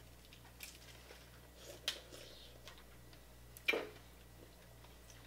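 Quiet eating sounds from a hand-eaten seafood boil: three sharp clicking snaps as shrimp and shellfish are handled and cracked, the loudest about two-thirds of the way through.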